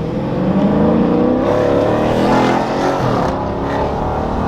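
Car engine revving hard under acceleration. Its pitch climbs, drops sharply about three seconds in, then climbs again.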